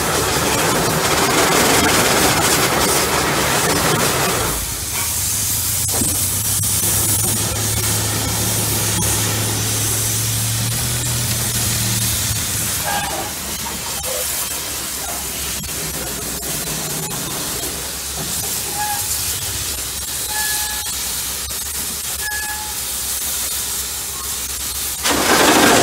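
Bucyrus-Erie 50-B steam shovel at work: loud hiss of escaping steam for the first few seconds and again near the end. In between, quieter machinery with a steady low hum for several seconds and a few short high squeaks.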